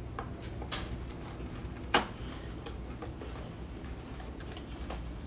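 Light taps and clicks of a frozen microwave dinner being taken out of its cardboard box, with one sharper knock about two seconds in, over a steady low hum.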